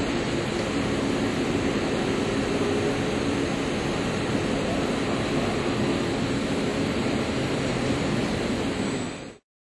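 CNC lathe running while a Walter G1111 grooving insert cuts a 42CrMo4 steel workpiece: a steady machining rush over a low hum. It cuts off abruptly near the end.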